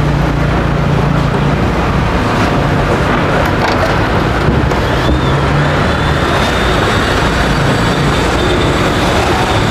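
Steady road traffic with engine hum rising and falling as vehicles pass.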